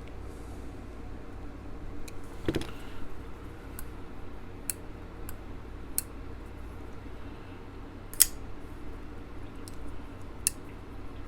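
Kershaw Static pocket knife's blade being opened and closed to test its action: a series of sharp metallic clicks, irregular and a second or two apart, with a duller knock about two seconds in and the loudest click about eight seconds in.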